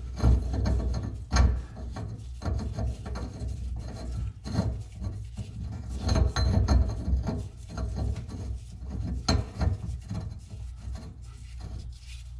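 A metal pipe nipple being turned by hand into a threaded fitting in the wall: irregular gritty scraping and rubbing of the threads and glove, with a few louder knocks.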